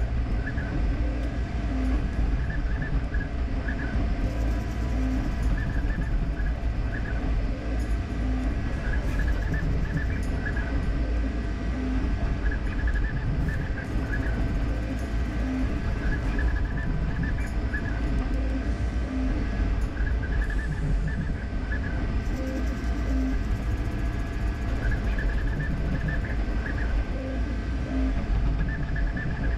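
Creality K1C CoreXY 3D printer printing at high speed: a steady fan hum and low rumble, with the stepper motors chirping in short, rapid bursts as the print head darts back and forth.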